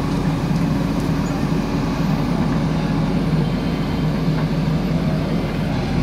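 JCB 3DX backhoe loader's diesel engine running steadily as the machine lifts and carries a log.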